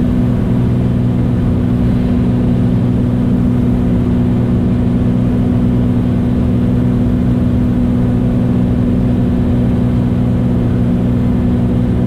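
Beechcraft Bonanza A36's six-cylinder piston engine and propeller running steadily in flight, heard as a constant cabin drone with several low steady tones.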